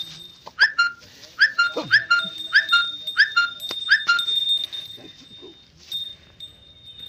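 Six short, high yelping animal calls in quick succession over the first four seconds, with a steady high-pitched whine behind them.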